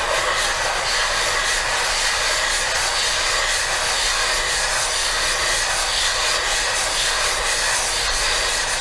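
Aluminium Brembo brake caliper half being wet-sanded by hand in figure eights on 600-grit wet/dry paper over flat glass: a steady rasping hiss that stops suddenly at the end. The mating face is being lapped flat to take down proud spots around the bolt holes.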